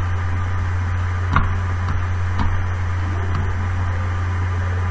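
Steady low electrical hum with a background hiss, and a couple of faint clicks about one and a half and two and a half seconds in.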